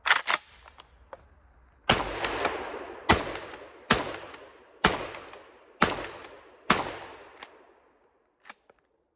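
Tokarev TX3 12-gauge pump-action shotgun fired six times in quick succession, about one shot a second, each blast trailing off in a long echo. Short clicks of the pump being racked come between the shots and at the start.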